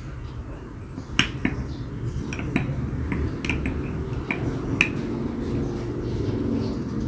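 A metal spoon clinking irregularly against its container, about eight sharp clicks, as it mashes tamarind pulp in hot water. A low, steady rumble runs underneath.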